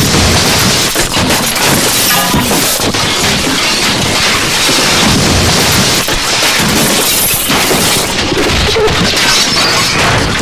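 Harsh experimental noise music from amplified objects, contact microphones, no-input mixing-board feedback and reel-to-reel tape: a dense, continuous wall of crackling, clattering and crashing noise with no pauses.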